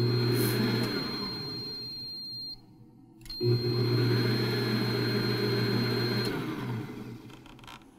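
Kenwood Cooking Chef stand mixer's motor running in two spells of about two and a half and three seconds with a short break between, a steady hum with a steady high-pitched tone over it that stops just before the motor winds down.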